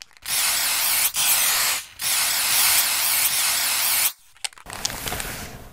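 Aerosol spray paint can hissing in three bursts, the last and longest lasting about two seconds, followed near the end by a softer stretch of clicks and hiss.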